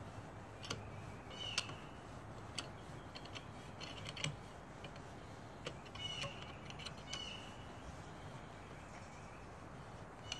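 Faint metallic clicks and taps from a C-clamp valve spring compressor being backed off a valve on a cylinder head, with a few short high chirps.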